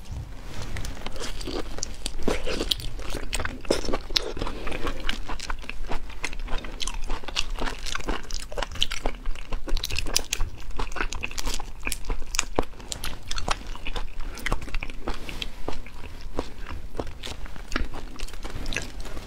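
Shells of raw, sauce-marinated black tiger prawns crackling and snapping as they are pulled apart by hand, mixed with wet crunching and chewing. Many sharp clicks and crunches come one after another without pause.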